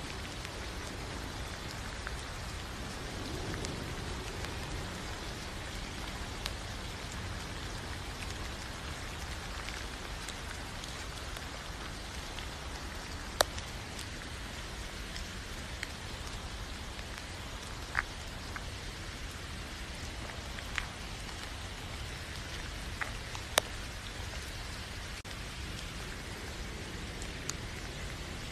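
Steady rain-like hiss with a few scattered sharp ticks, the loudest about halfway through.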